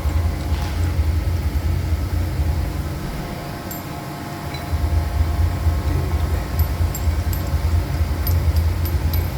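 Three-axis machining center running, a steady low rumble with faint steady tones over it. The rumble eases off about three seconds in and comes back about two seconds later.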